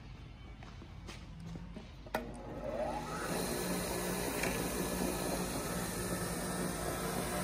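Bench grinder with a wire brush wheel switched on with a click about two seconds in, spinning up with a rising whine, then running steadily with a low hum.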